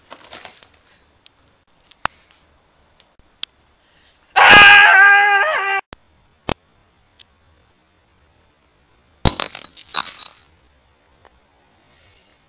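A loud held wail with a stepped pitch, lasting about a second and a half, about four seconds in. Then a sharp crack and a short crash about nine seconds in, with scattered sharp clicks.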